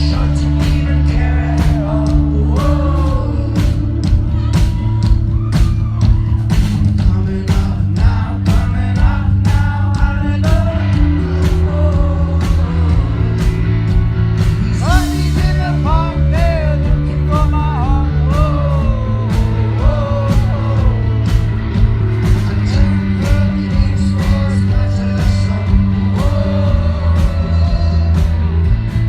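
A rock band playing live, with a lead singer over electric guitar, bass and a steady drum beat.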